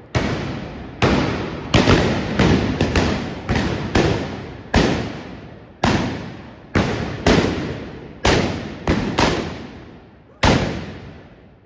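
Trabucs, the trabucaires' blunderbusses, firing blank powder charges in a rapid, irregular volley of around seventeen sharp blasts. Each blast rings out in a long echo that fades before the next.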